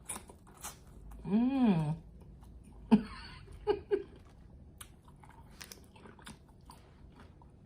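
Close-miked chewing with wet mouth clicks and smacks, with one hummed "mmm" that rises and falls about a second and a half in.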